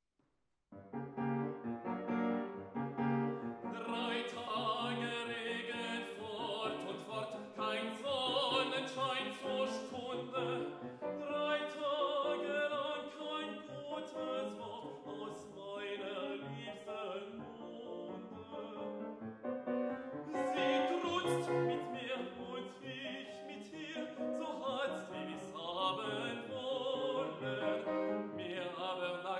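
A male classical singer performing an art song with grand piano accompaniment; the music begins out of silence just under a second in.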